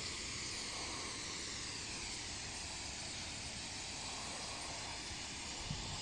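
A large flock of common starlings at a reedbed roost making a steady rushing hiss, with no single call standing out.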